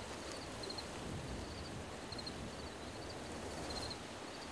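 Steady outdoor wind noise with leaves rustling, and faint high chirps in quick clusters of two to four notes repeating every half second or so.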